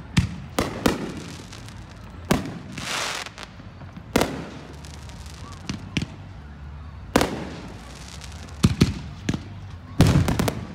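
Aerial firework shells bursting overhead: a series of sharp bangs at irregular intervals, several trailing off in an echoing rumble, with a quick run of bangs near the end.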